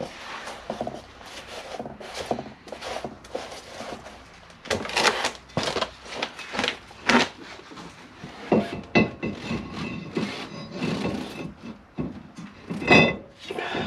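A rag rubbing over a new Brembo brake rotor in a long run of wiping strokes. Near the end the cast-iron rotor clanks and rings briefly as it is set onto the wheel hub and studs.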